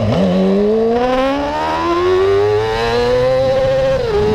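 Yamaha R6 600 cc inline-four sportbike engine under hard acceleration, rising steadily in pitch through a gear. Near the end the pitch drops sharply as it shifts up, then starts climbing again.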